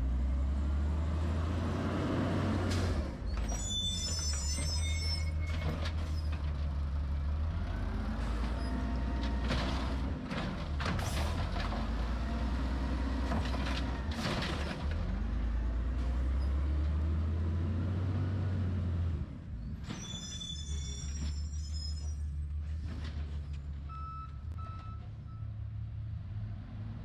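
Garbage truck at work: a steady low diesel rumble with scattered clanks, a short high-pitched squeal twice, and a few short beeps near the end.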